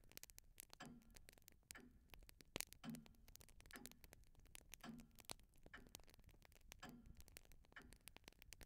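Faint clock ticking about once a second, with irregular small crackling clicks between the ticks.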